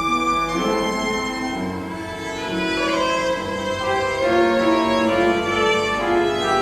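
Piano trio of violin, cello and piano playing classical chamber music, the strings holding long bowed notes that change pitch every half second to a second.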